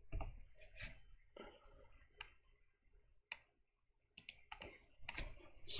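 Faint, irregular clicks from a computer mouse and keyboard, about ten in all, spaced unevenly.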